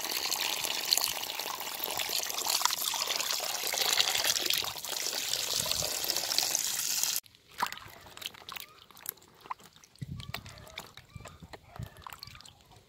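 Water pouring and splashing as raw chicken pieces are rinsed in a plastic basin. It cuts off abruptly about seven seconds in, followed by quieter small splashes and knocks of hands rinsing vegetables in a basin of water.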